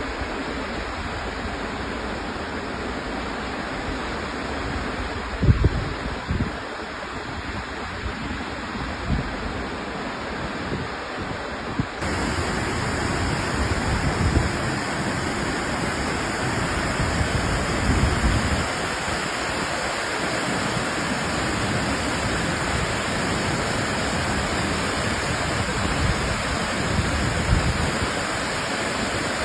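Waterfall rushing in a steady, dense roar of falling water, with a few low gusts of wind on the microphone. About twelve seconds in, it abruptly becomes slightly louder and brighter.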